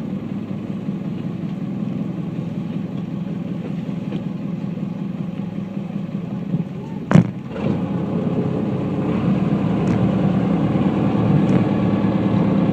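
Engine of a small harbour ferry running steadily, with one sharp knock about halfway through, after which the engine gets somewhat louder.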